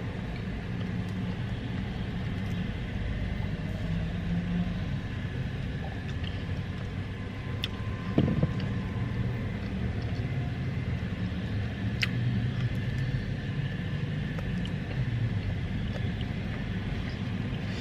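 Steady low rumble of a car on the move, heard from inside the cabin, with a few light clicks.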